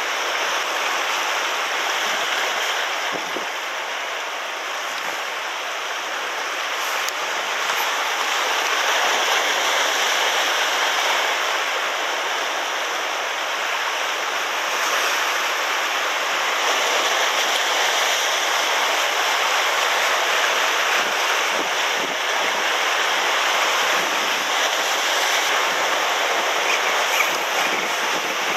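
Sea surf breaking and washing over shore rocks: a continuous rushing wash that slowly swells and eases.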